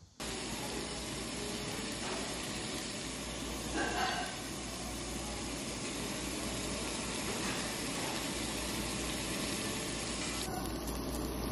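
Thick slices of pork belly sizzling on a tabletop barbecue grill: a steady, dense hiss that starts suddenly. There is a brief louder moment about four seconds in.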